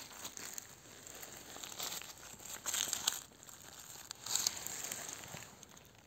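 Dry fallen leaves and pine needles rustling and crunching as a person moves through the forest litter, in a few short bursts, loudest about three seconds in and again about four and a half seconds in.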